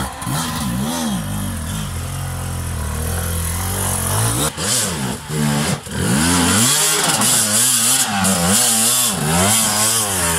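Enduro dirt-bike engines revving up and down as the bikes claw up a steep, rocky trail. The revs swing in repeated bursts, coming more quickly from about halfway through.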